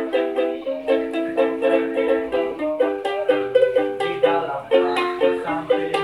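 Small acoustic string instrument strummed in a steady, quick rhythm, the chords changing every second or so.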